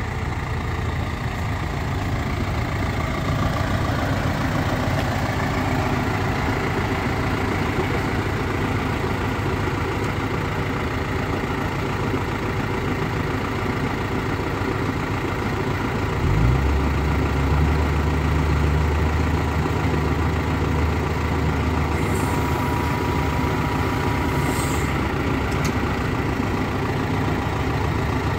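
John Deere 6125R tractor's diesel engine idling steadily. About halfway through, a deeper, louder hum sets in and holds for a few seconds before the idle settles back.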